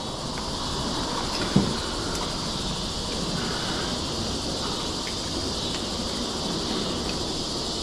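Insects droning steadily in a high, even band over a broad rushing hiss, with a single sharp click about a second and a half in.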